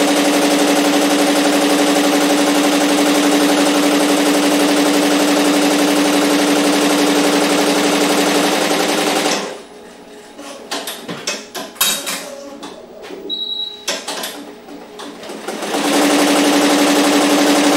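Barudan commercial embroidery machine stitching a logo on a cap, a loud, steady high-speed hum. It stops about halfway through for roughly six seconds, with scattered clicks and a short high beep, then starts stitching again near the end.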